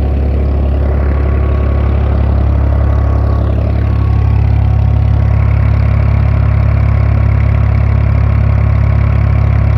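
Tube-well pump engine running steadily with a loud, unbroken low hum, over the noise of pumped water pouring out. It grows slightly louder about four seconds in.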